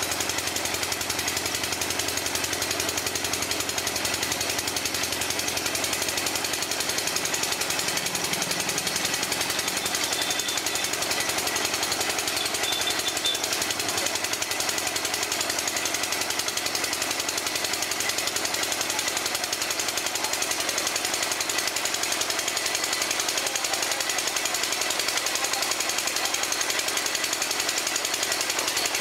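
Water-well drilling machine running and hammering steadily, a fast, even stream of percussive blows.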